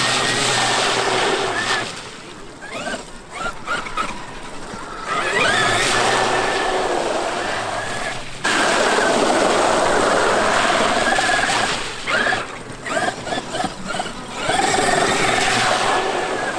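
Traxxas X-Maxx electric RC monster truck driving in throttle bursts: its brushless motor whines, rising and falling in pitch over tyre and ground noise. There are three long runs with quieter pauses between them.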